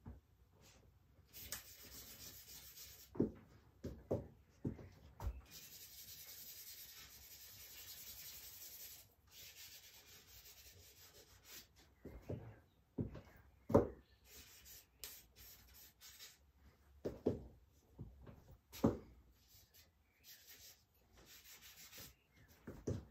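Charcoal being stroked and rubbed on drawing paper on an easel: stretches of dry rubbing hiss, the longest a steady rub of a few seconds in the first half, with occasional sharp knocks between them.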